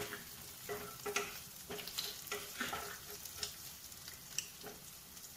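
Wooden spatula stirring and scraping in a nonstick wok, in repeated short strokes, over a light sizzle of cumin seeds, curry leaves and green chilli frying in a little oil.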